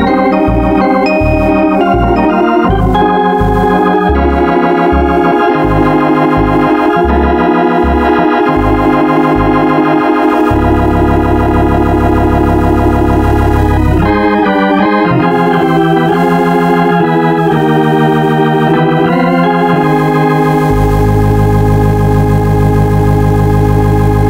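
Organ music: chords over a bass line that steps about twice a second, then held bass notes under the chords in the second half.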